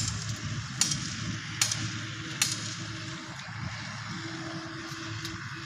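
Water buffalo grazing, tearing off mouthfuls of grass: four sharp snaps, evenly spaced a little under a second apart, in the first half. Under them a steady outdoor hiss and low rumble, with a faint steady hum coming in about halfway.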